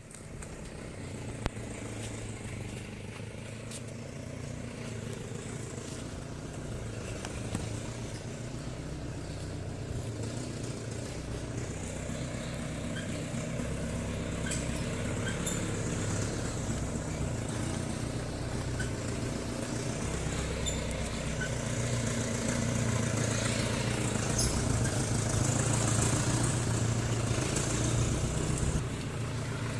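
Toyota FJ40's diesel engine running as the vehicle drives, growing gradually louder and dropping back a little just before the end.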